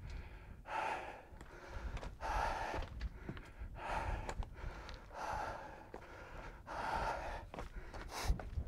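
A man breathing hard while climbing a steep rocky path on foot, one loud breath about every one and a half seconds.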